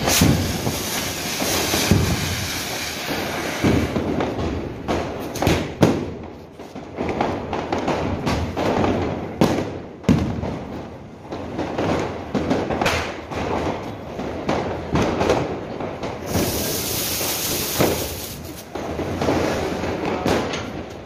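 Diwali firecrackers going off: repeated sharp bangs and crackles throughout, with stretches of hissing near the start and again about sixteen seconds in.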